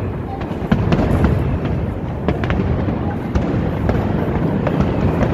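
New Year fireworks display going off: a continuous rumble of bursts with many sharp cracks and bangs scattered through it.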